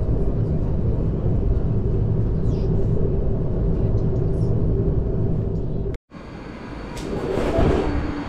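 Regional train running: a steady low rumble with a faint hum, cut off abruptly about six seconds in, then a new rush of rail noise that swells and eases near the end.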